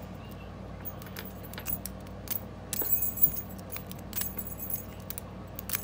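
Metal lock pick clicking and scraping over the pin stack of a solid brass five-pin padlock held under a tension wrench, in short irregular runs of sharp clicks as the pins are zipped, a test for security pins.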